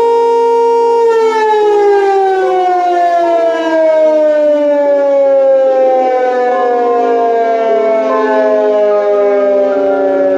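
Motor-driven public warning siren holding a steady high tone, then about a second in beginning a long, slow fall in pitch as the rotor winds down after switch-off.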